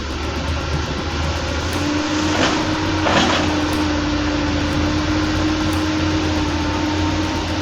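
Doosan excavator's diesel engine running steadily, with a steady hydraulic-type whine starting a little under two seconds in. Two short crackling noises come about two and a half and three seconds in.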